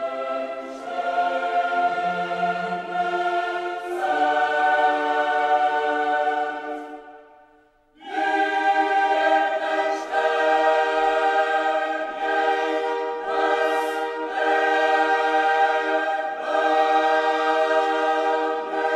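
Choir singing slow, held chords as background music; it fades out about seven seconds in and comes back a second later.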